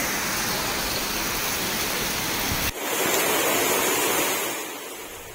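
Heavy rain and rushing floodwater: a steady hiss of water. About halfway through it cuts abruptly to a thinner stretch of water noise, which fades near the end.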